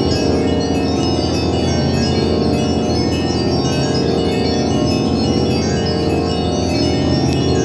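Instrumental music played from a 7-inch vinyl single on a record player: many overlapping, sustained ringing tones at different pitches, at an even level.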